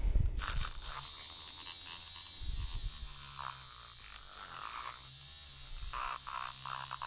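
Handheld battery-powered mini frother running steadily, its whisk spinning in a small bottle of freshly mixed e-liquid to blend and aerate it. It gives a steady low hum with a thin high whine.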